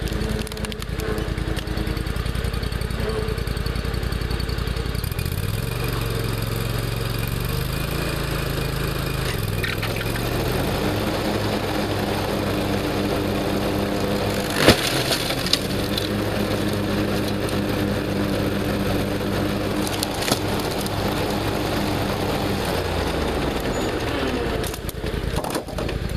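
Riding lawn mower engine running, its note shifting a few seconds in and falling near the end. About halfway through, one loud crack as the mower blades hit and shatter a Toshiba laptop, followed by a couple of smaller cracks.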